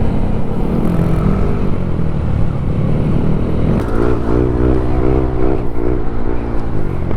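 Motorcycle engine running under way, its pitch rising and falling with the throttle a few seconds in, over heavy wind rumble on the microphone.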